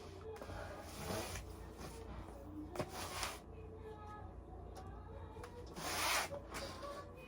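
Soft rubbing and rustling, with three swishes and a sharp click just before the second one; the swish about six seconds in is the loudest.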